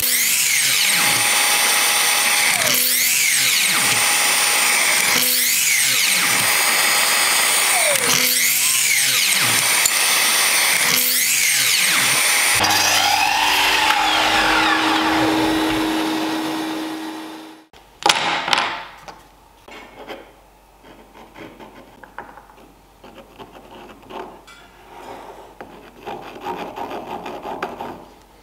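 Sliding miter saw running and cutting short pieces of wood, about five cuts a couple of seconds apart. The motor then winds down about seventeen seconds in, followed by quieter knocks and clatter of the small wooden pieces being handled.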